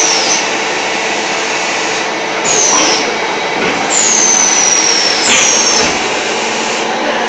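Terrazzo floor tile making machine running with a steady, loud machine noise, broken three times by high squeals that slide down in pitch, the middle one longest.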